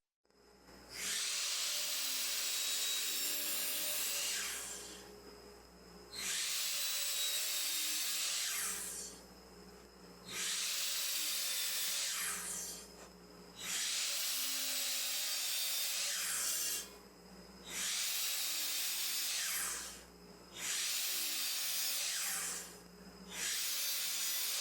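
Power saw crosscutting 2x4 lumber to length: seven separate cuts, each a steady high-pitched whine and rasp of about two to three seconds, some with the motor's pitch sliding at the start or end, with short pauses between.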